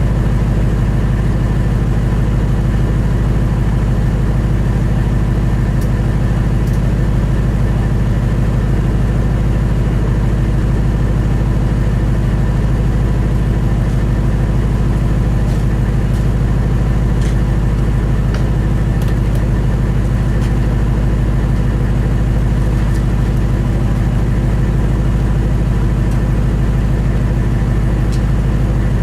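Straight-piped 5.4-litre V8 of a 1998 Ford Expedition, with no mufflers, idling steadily with a deep, loud exhaust note.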